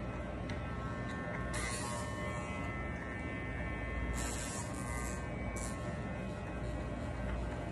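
Corded electric hair clippers with a guard comb running with a steady buzz, broken by a few short hissing bursts.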